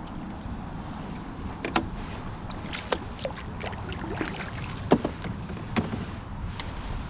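Scattered knocks and clicks of gear against a fishing boat's hull and deck over a steady low rumble; the sharpest knock comes about five seconds in.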